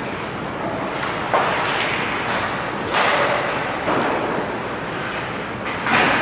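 Ice hockey play: skates scraping and carving the ice, with about five sharp knocks of sticks and puck, each ringing on in the echo of the arena.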